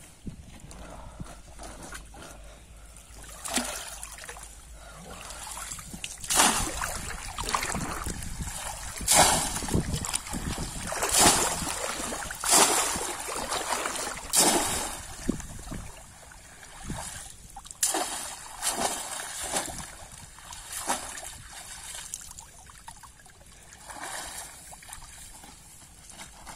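Shallow muddy water splashing as a bamboo polo fish trap is plunged down and lifted out again, a run of splashes every second or two, loudest through the middle, then a few smaller ones.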